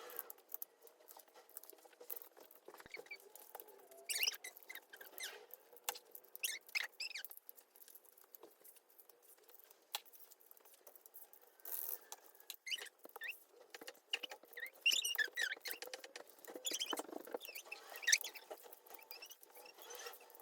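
Plastic keyboard keycaps being pried off and pressed onto their switches: irregular light clicks and short, squeaky plastic scrapes in small clusters.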